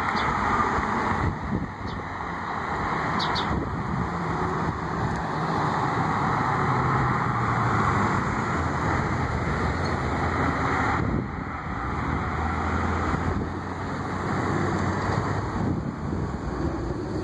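Street traffic: vehicles passing one after another, a steady tyre hiss over a low engine hum, easing off briefly a few times.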